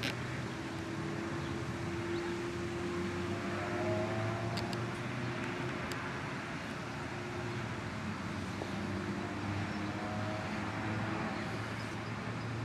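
Steady city background: an even hiss with the low hum of distant traffic, and a couple of faint clicks around five seconds in.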